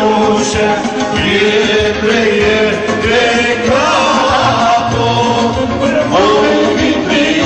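Folk dance music played by a live band with keyboard, with a voice singing over a steady beat.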